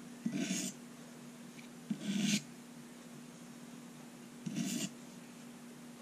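Three short, light scrapes of a Victorinox Tinker's small blade drawn across an oiled Norton fine India (aluminium oxide) stone, about two seconds apart: very light passes at the weight of the knife alone, shearing off the burr after sharpening.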